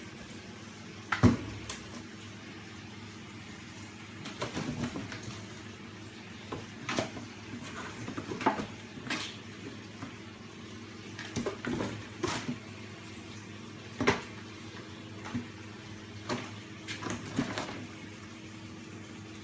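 Kittens playing with a cardboard box on a hard floor: irregular knocks, scrapes and clatters of the box and of paws as they bat and tumble against it, the sharpest about a second in. A steady low hum runs underneath.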